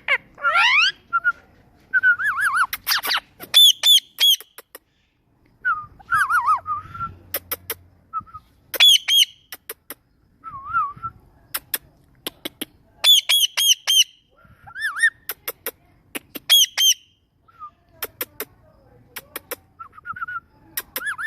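Ringneck parrot calling: short, sharp squawks repeated in quick runs, clusters of high chirps, and brief whistled glides that rise and fall, coming in bursts with short pauses between them.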